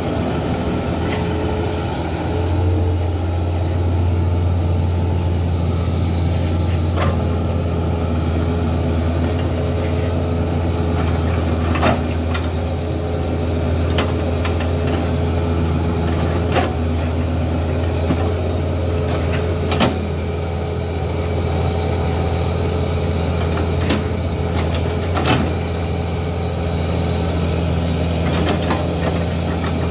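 Hitachi hydraulic excavator's diesel engine running steadily, with a sharp knock every few seconds as the knife bucket chops into a felled oil palm trunk.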